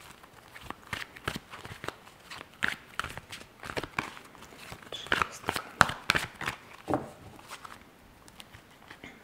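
Lenormand cards being shuffled and handled in the hand: a run of irregular light clicks and flicks of card stock that thins out near the end.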